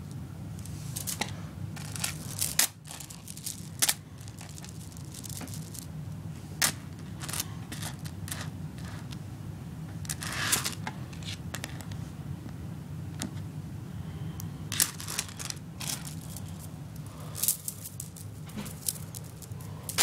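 Plastic pony beads of kandi cuffs clicking and rattling as they are handled, in scattered bursts over a steady low hum.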